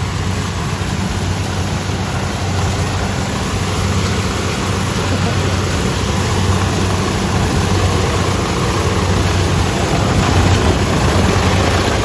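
Kubota DC-70 Plus tracked combine harvester working through a corn crop: its diesel engine runs steadily under load, with the even rushing noise of the threshing machinery over it.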